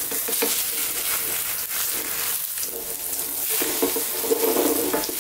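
Omelette frying in sunflower oil in a non-stick frying pan, sizzling steadily, with a plastic spatula scraping and tapping on the pan as the omelette is turned over and pressed down.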